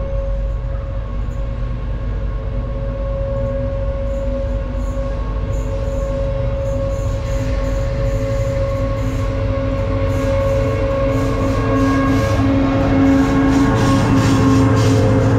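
CSR diesel-electric locomotive 5108 hauling a freight train of container flat wagons, its engine running with a steady drone as it approaches and passes close, growing louder. Wheels clatter over the rails in the second half.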